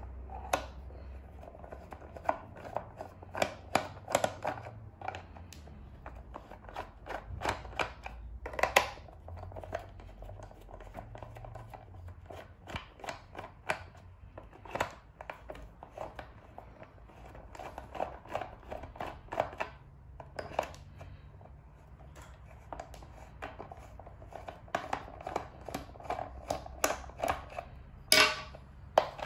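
A hand screwdriver's bit working screws out of a plastic air-compressor housing: irregular small clicks and scrapes of the tip in the screw heads and against the plastic, with a few louder clacks near the end.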